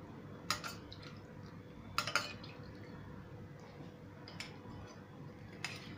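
A perforated skimmer tapping against a steel bowl of sugar syrup while it presses a fried pastry down into the syrup: a handful of light clinks, two of them close together about two seconds in.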